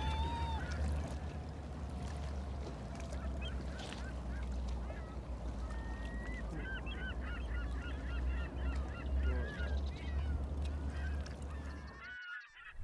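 Gulls calling over open water: a long call at the start, then a quick run of short, repeated calls around the middle. Under the calls is a steady low rumble, and the sound drops out briefly near the end.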